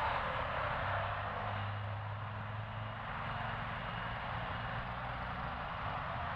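Street traffic: cars and motorbikes running past, a steady noise with a low engine hum that swells briefly about two seconds in.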